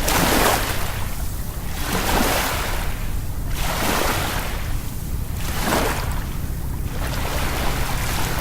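Sea waves washing in and out in regular surges about every two seconds, over a steady low rumble.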